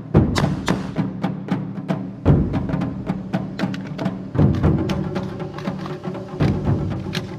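Background music with a steady percussive beat and a heavy low drum hit about every two seconds.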